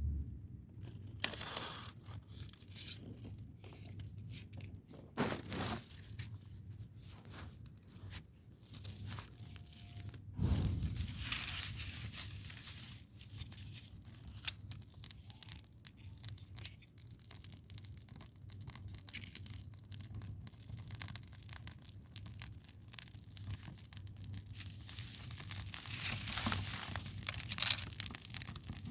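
Dry material handled close to the microphone: rustling, crunching and tearing with many small crackles. It gets busier about a third of the way in and again near the end.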